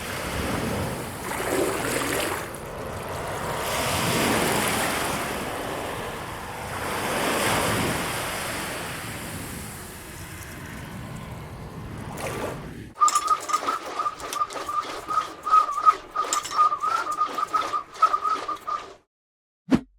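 Rushing wind or air noise rising and falling in slow gusts, every few seconds. About two-thirds of the way in it cuts to a steady, slightly wavering whistling tone with rapid crackling clicks over it, which stops abruptly near the end, followed by a single short click.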